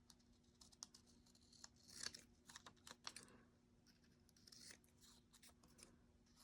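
Faint rustling of paper pieces being handled, with scattered light clicks and taps and brief rustles about two and three seconds in.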